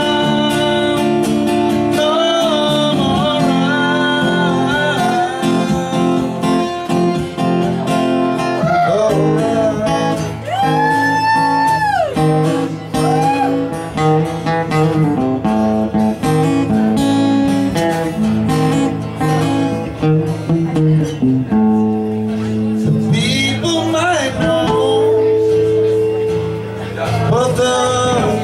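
Two acoustic guitars playing a song live, with a man's voice singing a few long, bending notes.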